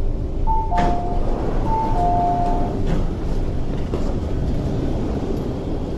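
MTR West Rail Line train's door chime: a two-note electronic chime sounding twice, the second time longer, as the doors open at the platform, with a knock of the doors releasing under the first chime. Low train and station rumble runs underneath.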